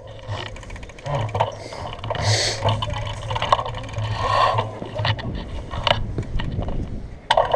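Bicycle rattling and clicking as it is ridden over a cracked concrete path, with a steady low hum underneath.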